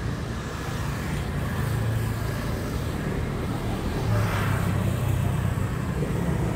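Road traffic: a motor vehicle's engine running steadily close by, with a vehicle swelling past about four seconds in.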